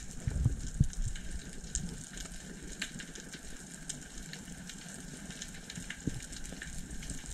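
Underwater ambience picked up by a diving camera: a steady hiss full of scattered sharp clicks, with low rumbles of water moving against the camera in the first second and again around six seconds in.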